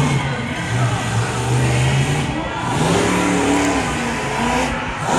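Monster truck's supercharged V8 engine revving as the truck pulls away and drives onto the dirt course, its pitch rising and falling about halfway through.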